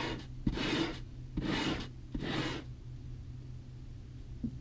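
Steel chisel being worked back and forth by hand on foam-backed sandpaper to hone its edge: four scraping strokes in the first two and a half seconds, then they stop.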